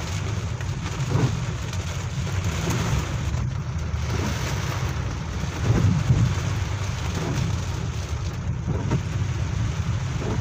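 Heavy rain pouring steadily, with a constant low rumble under it and a louder swell about halfway through.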